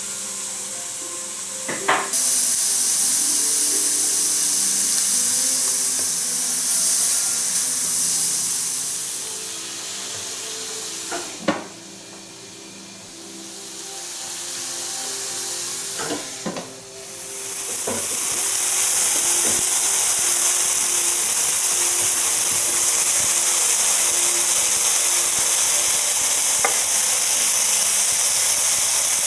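Sausage patties frying in an Oster electric skillet: a steady, loud sizzle of hot fat. The sizzle drops away for a few seconds in the middle, and a few sharp knocks break through.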